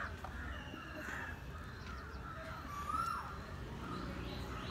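Crows cawing, several separate calls spaced out over the seconds, one near the middle rising and then falling in pitch.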